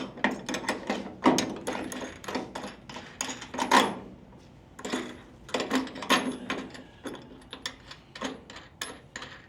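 Irregular clicks and knocks of metal tools and hardware being handled while the chain tensioner parts are fitted, with the loudest knock a little under four seconds in.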